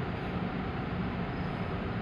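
Steady interior noise of a Tobu 50050 series commuter train car: an even rumble and hiss with a low hum underneath.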